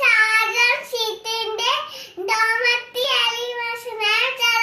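A young boy singing in a high, sing-song voice, holding long syllables with short breaks.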